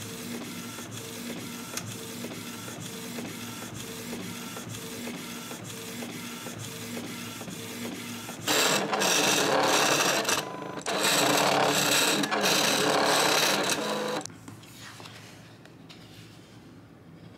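Canon inkjet printer printing a sticker sheet: a steady whirring that repeats about twice a second as the print head passes back and forth. About eight seconds in, a much louder, noisy mechanical stretch starts and lasts about six seconds, with a short break in the middle, then drops away.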